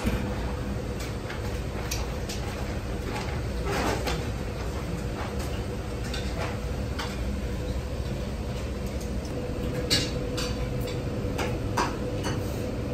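Indoor ambience of a small restaurant: a steady low hum with a faint steady tone, broken by scattered short clicks and knocks from the kitchen and tables.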